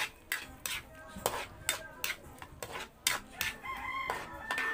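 Metal spatula scraping and knocking against a steel wok, about two strokes a second, while egg yolks are stirred into a thick cream sauce. Near the end a held pitched call sounds in the background.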